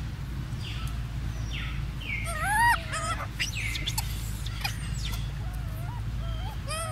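Macaque monkey calls: high, arching squeals, loudest about two and a half seconds in, with weaker ones near the end and short falling chirps between them.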